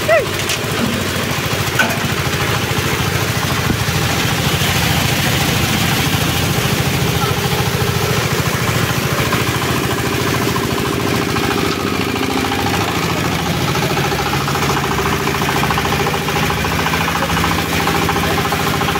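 Small single-cylinder stationary diesel engine running steadily, driving a waste-sorting machine.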